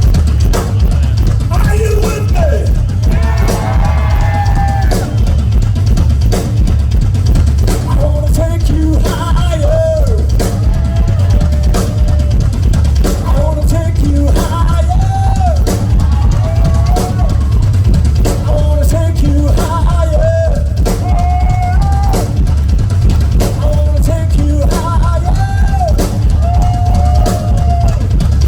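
Rock drum solo on a full drum kit: a fast, dense bass-drum pulse with snare strokes over it, played loud and without a break.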